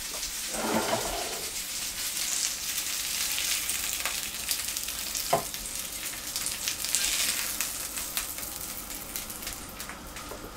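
Hot oil sizzling and crackling in a frying pan just after the tuna steaks were fried, slowly dying down. A couple of sharp clicks stand out near the middle.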